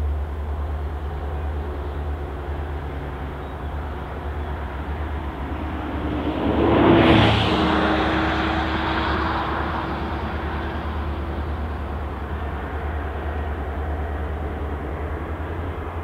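Distant C class and T class diesel-electric locomotives hauling a ballast train, a steady low engine rumble as they approach. About seven seconds in, a louder rush of noise with a steady hum swells and fades.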